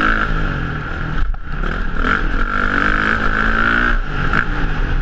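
Kawasaki KX450 motocross bike's engine, heard from a helmet camera, revving under throttle as the bike rides the track: a short dip about a second in, then the pitch climbs steadily before falling back near the end.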